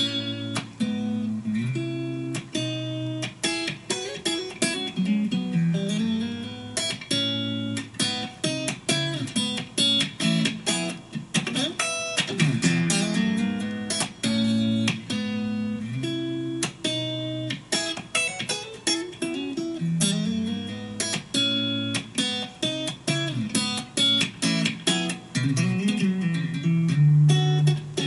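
Fender Stratocaster electric guitar playing a busy funk rhythm part: quick, crisp strums and short chord stabs mixed with single-note lines, in a steady, dense rhythm.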